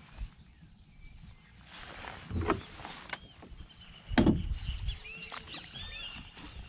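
A hooked trahira splashing twice at the water's surface as it is fought toward the kayak on a baitcasting rod, the second splash, about four seconds in, the louder.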